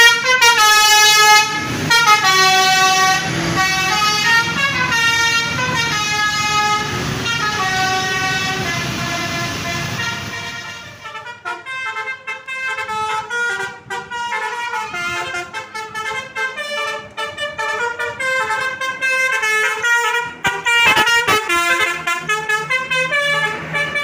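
Bus telolet horns, Basuri-type multi-tone air horns, playing a fast stepping melody of several notes at once. From about eleven seconds in a different bus's horns take over with a choppier, broken-up tune.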